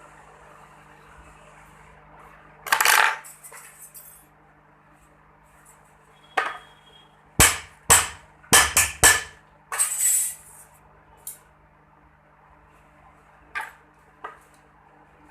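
Small metal tools and pieces clinking and knocking against a hard work surface: about five sharp clinks in quick succession in the middle, with a scrape just before them and just after, and a few lighter taps near the end, over a low steady hum.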